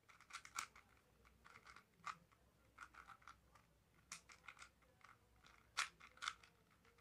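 Plastic 4x4 speedcube being turned quickly by hand: faint, irregular clicks and scrapes as the layers snap round.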